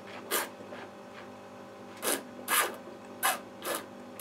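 A wine taster's breathing and mouth noises as he works a sip of wine: about five short, rasping puffs of air, irregularly spaced.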